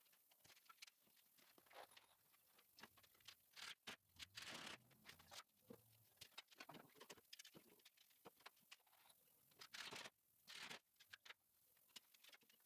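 Near silence broken by faint, scattered clicks and rustles at an irregular pace.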